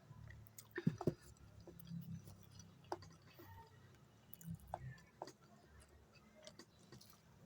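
A person chewing sushi: soft wet mouth smacks and clicks at irregular intervals, with a cluster of louder ones about a second in.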